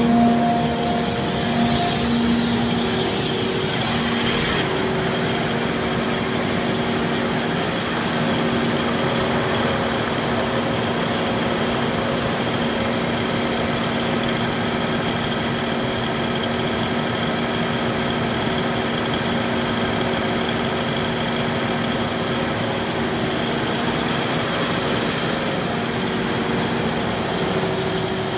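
Cummins KTA50-G8 1500 kVA diesel generator set, a turbocharged V16, running at a steady speed: an even drone with a few held tones.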